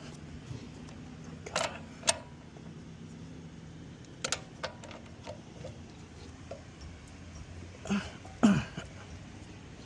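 Hand tools clanking against lug nuts at a car wheel: a handful of short, sharp knocks, the loudest about eight and a half seconds in.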